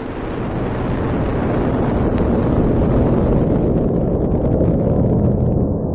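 A loud, dense rumbling roar, strongest in the low range, that holds steady and begins to fade near the end.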